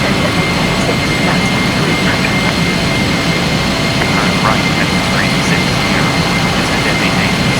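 Jet airliner engines running: a steady noise at an even level, with a constant high tone above it.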